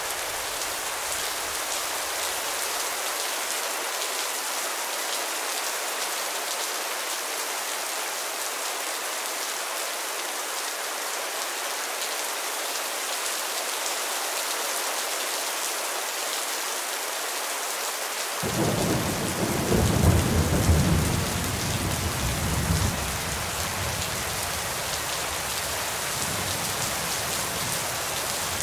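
Steady rain falling, with a low roll of thunder that breaks in about two-thirds of the way through, peaks over a few seconds and then rumbles off.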